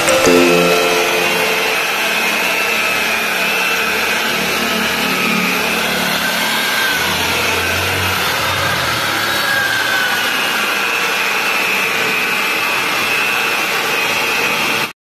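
Electric rotary polisher running steadily, its pad buffing a scooter's plastic body panel, with a motor whine that drifts slightly in pitch as it works. It cuts off suddenly near the end.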